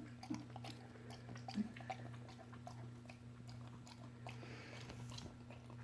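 Dog chewing and smacking its mouth on peanut butter: irregular short clicking smacks, a couple slightly louder in the first two seconds.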